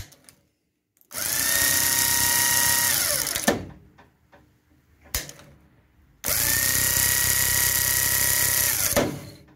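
Gardner 6-inch electric starter motor spinning free on the bench, run twice for two to three seconds each: it starts abruptly with a whine that climbs quickly and holds steady, then winds down with a falling whine, with sharp clicks of the contacts before and between the runs. It spins energetically because the solenoid contacts are bridged with a heavy screwdriver, sending full current to the main windings, a get-me-home trick for a solenoid whose lower contact is not closing.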